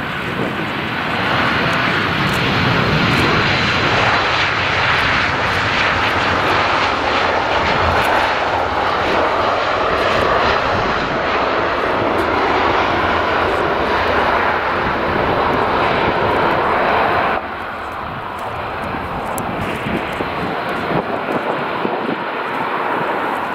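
Boeing 737-300 freighter's CFM56 jet engines running loud as the airliner rolls along the runway. The noise drops abruptly about 17 seconds in and carries on at a lower level.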